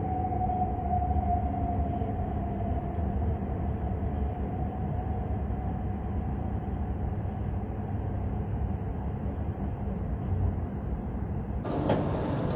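E5-series Shinkansen heard from inside the car as it slows into a station: a steady low rumble with a whine that falls slowly in pitch over the first couple of seconds. Near the end the sound changes abruptly to a brighter hiss of the stopped train at the platform.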